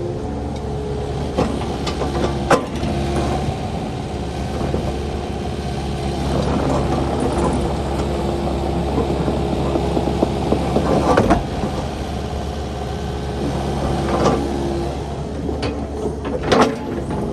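Kubota KX080 crawler excavator's diesel engine running steadily while the machine works, with a few sharp knocks from the machine, the loudest near the end.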